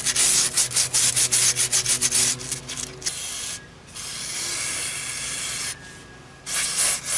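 Emery cloth rubbed quickly back and forth against the rusty steel bore of a steering knuckle, about four or five strokes a second, cleaning out rust and gum. A little over two seconds in the rubbing stops, and an aerosol can sprays through its straw in three steady bursts, the middle one nearly two seconds long.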